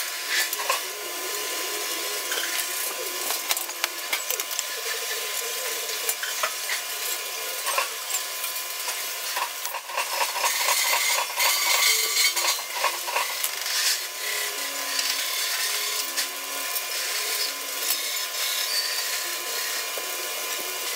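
Fast-forwarded sheet-metal workshop noise: a dense, rapid clatter of small clicks and scraping from tools and metal being worked.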